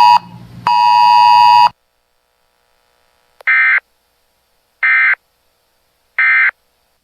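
A loud, buzzy electronic beep tone ends just after the start and sounds again for about a second. Then come three short, identical warbling data bursts about 1.3 seconds apart: the SAME end-of-message code of a NOAA Weather Radio / EAS alert broadcast, marking the end of the warning.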